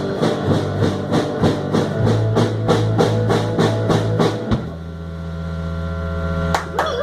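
Live rock band playing with drums hitting about four times a second over a low bass-guitar line, then stopping about two-thirds of the way in on a held final chord that rings on, with one more hit near the end.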